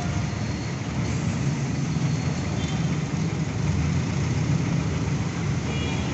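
Street traffic with a motor vehicle engine idling, a steady low rumble.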